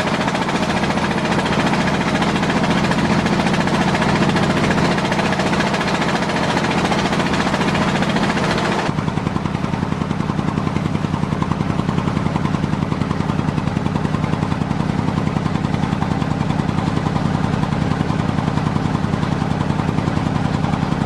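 Heavy construction machinery running steadily. About nine seconds in, the high-pitched part drops away and the sound settles into a fast, even pulsing.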